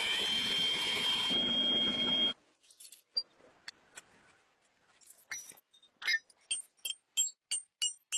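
A loud rushing noise with a high steady whine stops abruptly about two seconds in. A few scattered taps follow. From about six seconds, hammer blows on metal land about three a second, each one ringing.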